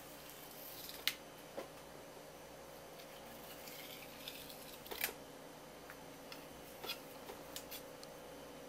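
A kitchen knife cutting along a striped jack's (shima-aji) backbone while it is being filleted: soft scraping against the bones and fins, with several sharp clicks. The loudest clicks come about a second in and about five seconds in.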